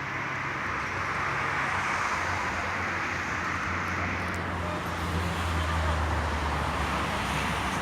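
Steady road-traffic noise, with a low engine hum that swells in the middle and eases off near the end.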